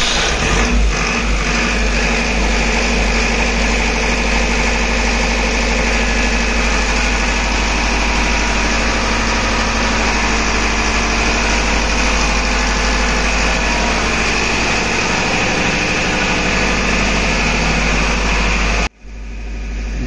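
50 kVA diesel generator engine, fitted with a large silencer, running steadily just after being started. Near the end the sound breaks off abruptly for a moment.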